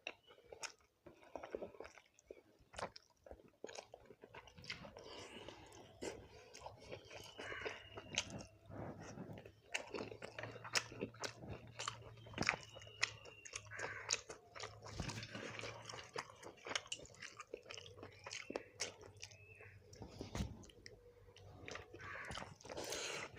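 Close-miked eating: a person chewing and biting fried fish with rice, with irregular wet clicks and small crunches.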